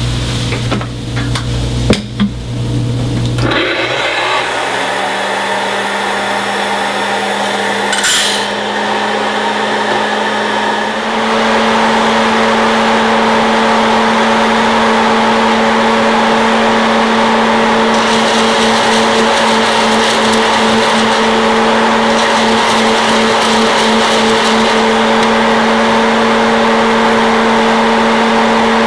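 Hot-air popcorn popper's fan motor running steadily, blowing hot air through a chamber of still-green coffee beans at the start of a roast: a steady whir with a held whine. It gets louder and steadier about eleven seconds in, after a low hum and a couple of knocks in the first few seconds.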